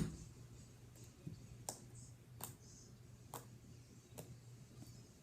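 A sharp knock right at the start, then a few faint, scattered clicks over a low steady hum.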